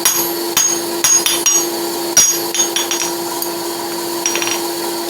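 Blacksmith's hammer striking a steel horseshoe on the anvil, about ten irregular blows with a bright metallic ring and a short pause before the last few. Underneath, the electric forge blower runs with a steady hum.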